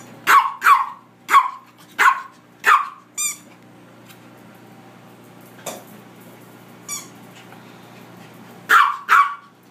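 A small dog barking in short, sharp barks while playing fetch: about five quick barks in the first three seconds, a pause, then two more near the end.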